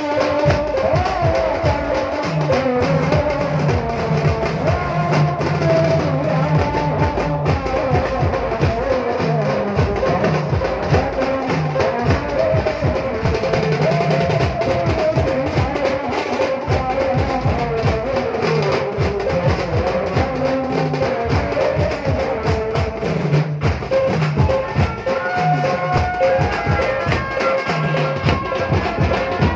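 A banjo party street band plays: a wavering lead melody over a fast, steady drum beat, with no pause.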